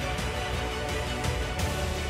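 Background music with sustained tones over a steady low bass.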